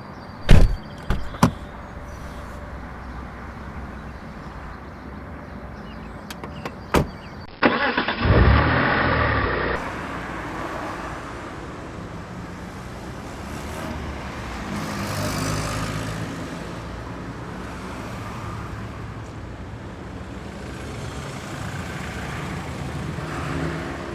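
A car: a few sharp knocks near the start, then an engine surges loudly about eight seconds in and runs on steadily, swelling briefly about halfway through.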